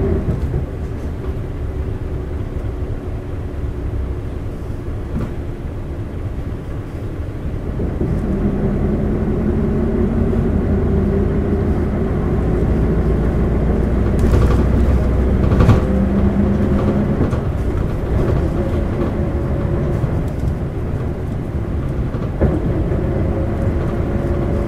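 Cabin sound of an Isuzu LV bus running on its 8PE1-N V8 diesel. The engine note dips, then picks up about a third of the way through, with a high whine that rises in pitch twice. This bus's engine has turned shrill in fourth and fifth gear from age and wear.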